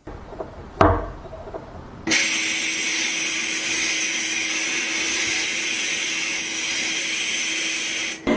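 A single knock, then a power tool running steadily against a workpiece for about six seconds with a constant hum under a hiss, cutting off suddenly near the end.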